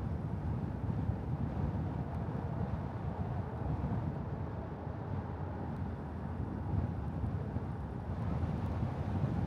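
Steady low rumble of wind buffeting the microphone of a small camera clamped to a moving car, mixed with tyre and road noise; slightly louder near the end.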